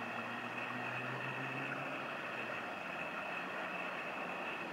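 Passing inland cargo ship's diesel engine drone, its low tones fading after about two seconds, over steady rushing noise and a thin high whine.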